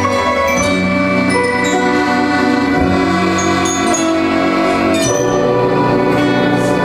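A small live ensemble playing a tune: metallophones struck with mallets carry the melody, with accordion, lap gusli, electric guitar and piano.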